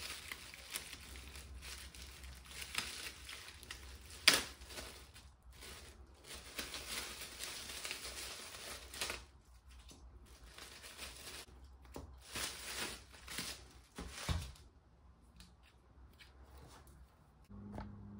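Plastic album packaging being torn open and crinkled by hand, a busy crackling rustle with one sharp snap about four seconds in. The handling stops about fifteen seconds in.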